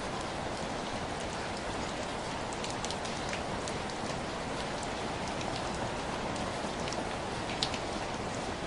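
Steady rainfall on hard surfaces, with scattered individual drips ticking through the steady patter.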